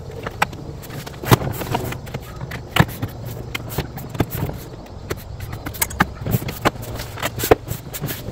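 Plastic liftgate trim panel of a Jeep Grand Cherokee WJ being pressed and slapped into place by hand, its push-in trim fasteners snapping into their holes: a series of irregular sharp knocks and clicks.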